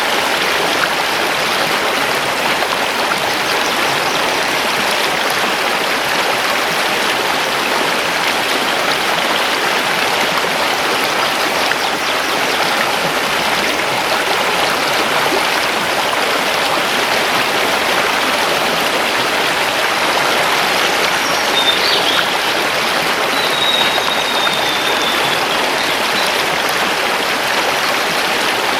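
Mountain river rushing steadily over stones. A bird gives a few faint, high, short calls about three-quarters of the way through.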